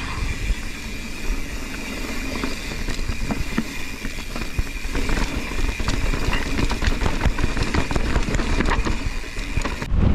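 Mountain bike riding over a rough rocky trail: a steady low rumble with many rattles and knocks from the bike, and a steady high whine throughout. The sound changes abruptly near the end.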